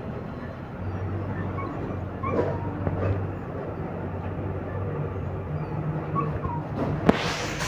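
A dog whimpering, with a few short, high, curling cries over a steady low hum. A sharp click comes near the end, followed by a rush of hiss.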